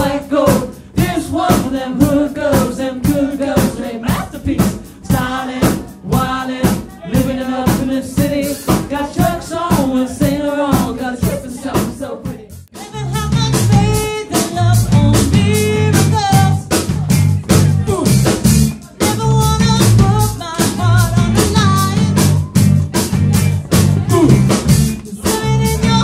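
Live pop/rock band playing: a female lead singer over drum kit, electric guitar and bass guitar, with a steady beat. About halfway through, the sound briefly drops and returns fuller, with heavier bass.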